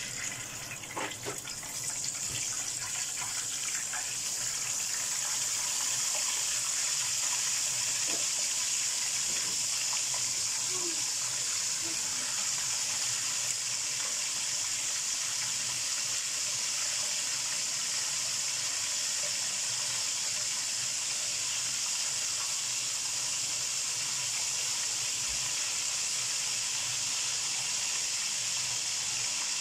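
Vinegar-marinated flying fish sizzling in hot oil in a frying pan. The sizzle builds over the first few seconds as more fish go in, then holds as a steady hiss.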